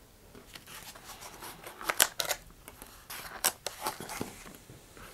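Crisp clicks and light taps of small parts being handled on a cutting mat with a small hand tool, a scattered run of them with the sharpest about two seconds in and again a little past three seconds.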